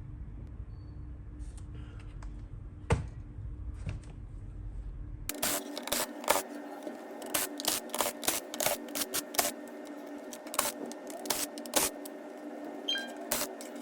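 Hands handling laptop hardware and packaging: irregular sharp clicks and light scrapes over a steady hum. The clicks come sparsely at first, then thick and fast after an abrupt change about five seconds in.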